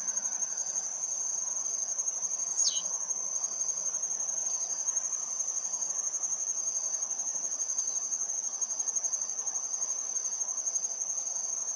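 Insects trilling: one high, steady, finely pulsing trill continues throughout, with a second insect's short repeated chirps just below it. A single quick falling whistle comes about two and a half seconds in.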